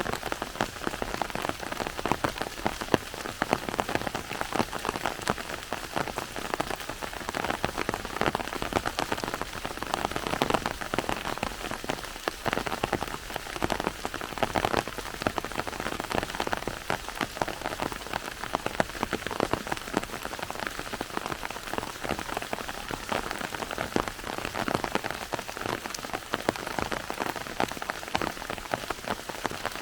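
Steady rain falling, a dense patter of individual drops hitting surfaces.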